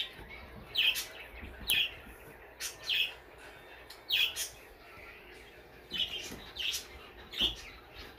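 A small bird chirping repeatedly: short, high, falling chirps about once a second, some in quick pairs.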